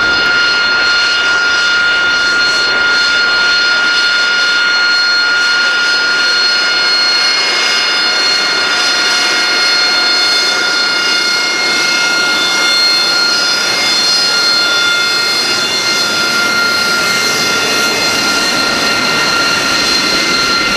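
AV-8B Harrier II's Pegasus turbofan running steadily: a constant jet rush with a high whine made of several steady tones.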